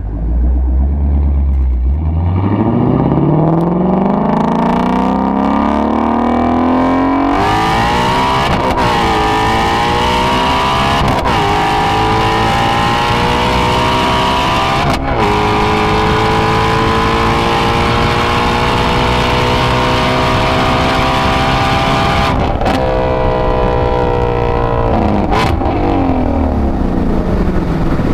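Shelby GT350's 5.2-litre flat-plane-crank V8 exhaust on a wide-open-throttle pull. The revs climb and drop back at gear changes about 7, 9 and 11 seconds in, then build slowly through a long pull. About 22 seconds in the throttle is lifted and the revs fall away.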